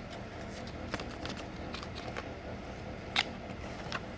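Makeup palettes and their plastic packaging being handled, giving a few scattered small clicks and taps, the sharpest about three seconds in.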